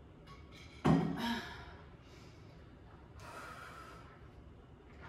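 A woman's sharp gasp just after a drink of water, about a second in, then a long breath out about three seconds in, as she catches her breath after an exercise round.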